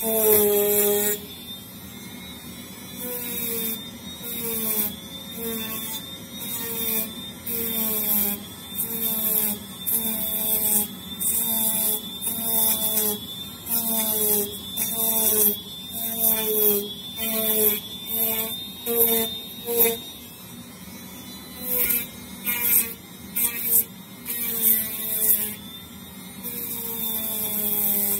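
Dremel rotary tool with a wheel bit running and carving into foam insulation board. Its whine dips in pitch each time it is pressed in, with a scraping hiss about once a second as it works in repeated strokes.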